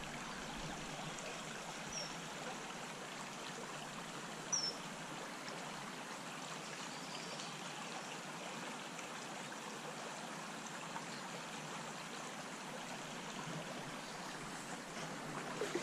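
Small stream running steadily: an even rush of shallow flowing water, with two brief high chirps about two seconds and four and a half seconds in.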